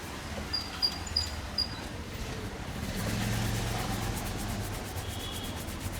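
Street traffic noise: a low vehicle rumble swells about halfway through, after four short high chirps in the first two seconds.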